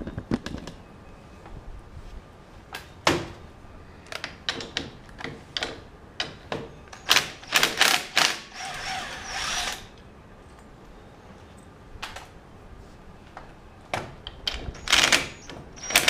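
Metal clicks, clinks and knocks of hand work on a race car's front hub and Wilwood brake mount as the bolts are loosened and thin metal shims are taken out. There is a brief whir of about a second around nine seconds in, and a burst of clicking near the end.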